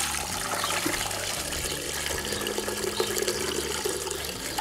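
Red wine marinade pouring in a continuous stream from a tilted steel roasting pan through a strainer into a stainless steel stockpot.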